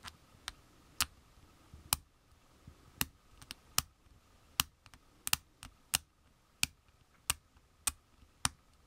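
A #16 hobby knife blade scraping mold release marks off a small plastic model intake manifold: a run of short, sharp clicks, about two a second at uneven spacing, as the blade catches the plastic on each stroke.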